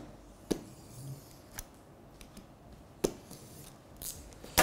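Box cutter working through packing tape on a cardboard box: a few sharp clicks and scrapes, then a longer scrape near the end.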